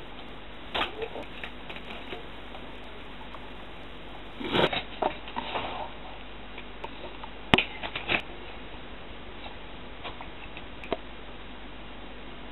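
Scattered short knocks, rustles and clicks of a glass vodka bottle and the camera being handled as the bottle is swigged from, with a denser patch of noise about halfway through and a sharp click about seven and a half seconds in, the loudest.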